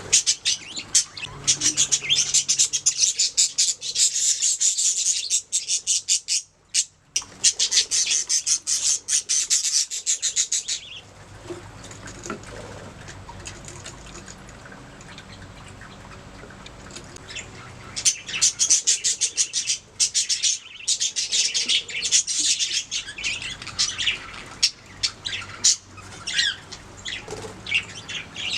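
Budgerigars chirping and warbling in rapid, dense chatter, with squawks mixed in; the chatter drops to a few faint calls for several seconds in the middle, then picks up again.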